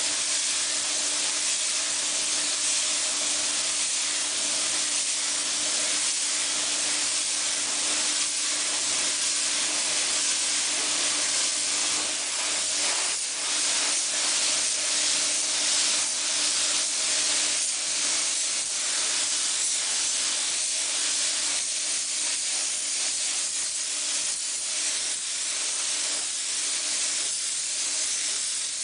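Compressed-air paint spray gun hissing steadily as dark top coat is sprayed onto a VW Beetle convertible body, with a faint steady hum underneath. The hiss flickers on and off between about 12 and 20 seconds in as the spray comes and goes.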